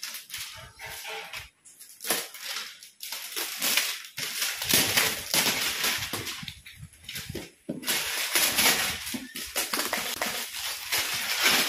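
Clear plastic film wrapping on a cardboard box crinkling and tearing as it is pulled off by hand, in irregular bursts.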